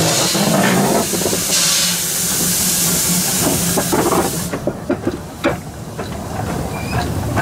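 Steam hissing loudly from the 0-4-2 steam locomotive Kilrie as it moves slowly past. The hiss cuts off suddenly about four and a half seconds in, leaving a scatter of knocks and clanks from the locomotive.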